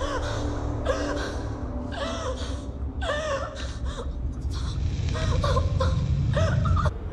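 A woman gasping and whimpering in fear, short breathy cries every second or so. Underneath, a low rumbling music drone that swells louder near the end.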